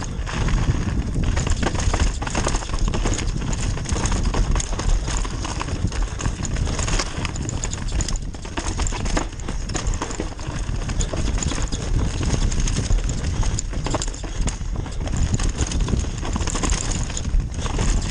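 Mountain bike descending a dirt forest trail at speed: tyres running over dirt and roots, the bike rattling with a constant stream of knocks, and wind rushing over the head-mounted camera's microphone.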